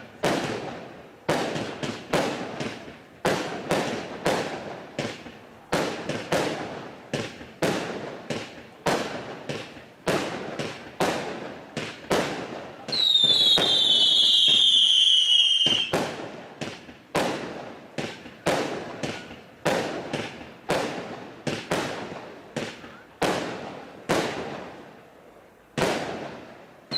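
FC20100-3 firework cake firing shot after shot, about two sharp bursts a second, each fading out. Partway through, a loud falling whistle runs for about three seconds, then the bursts resume.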